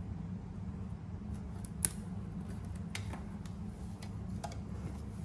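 A few sharp, isolated clicks from hands working with journaling materials, the loudest a little under two seconds in, over a steady low hum.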